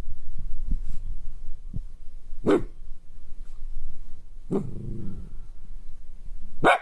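Kaninchen dachshund giving three short barks, the middle one running on into a low grumbling growl. These are frustrated, demanding 'woo-woo, gau-gau' barks from a dog fed up with being kept at home.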